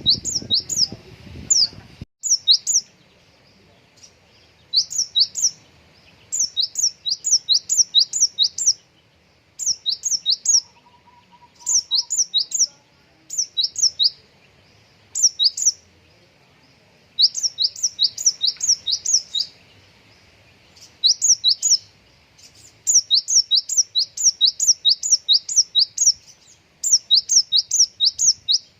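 A konin songbird singing in bursts of rapid, sharp, high chirps that sweep downward, several to a burst with short pauses between; the song is the gelatik-style (Java sparrow) mimicry a konin is kept and trained for. A low background rumble cuts off about two seconds in.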